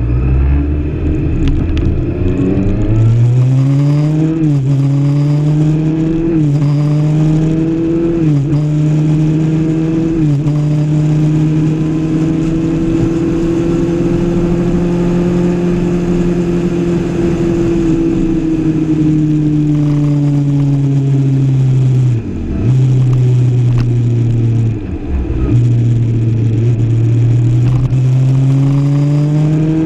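Kawasaki ZX-6R 636 inline-four sport-bike engine pulling hard through the gears. It climbs and drops in pitch with four quick upshifts in the first ten seconds, then cruises at a steady pitch. The throttle closes briefly twice and the engine pulls up again near the end, over steady wind rush.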